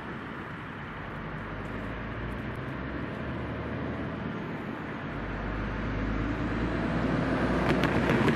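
Low rumble of an approaching vehicle, growing steadily louder over the last few seconds.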